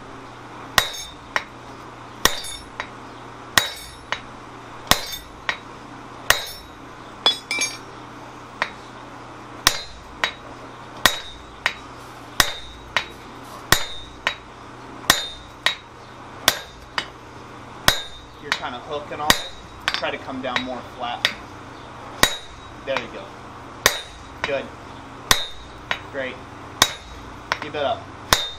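A sledgehammer striking a handled round punch held on a red-hot steel block, sinking a depression into a forged swage block. Even blows about one and a half a second, each with a short metallic ring.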